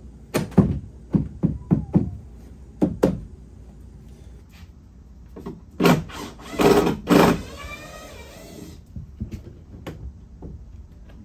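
Wooden knocks and bumps as the cedar-strip canoe hull is handled on its plywood stand: a quick run of sharp knocks, then a louder rough scraping stretch about halfway through that dies away with a ringing tail.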